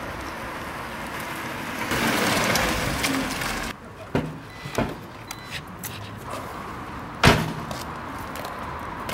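BMW Z4 roadster driving up across a car park, its engine and tyre noise swelling for a couple of seconds and then cutting off suddenly. A few small knocks follow, then one loud car door slam about seven seconds in.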